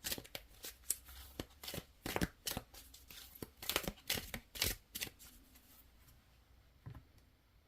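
An oracle card deck being shuffled by hand: a quick run of card snaps and flicks for about five seconds. It then thins out, with one last tap about seven seconds in.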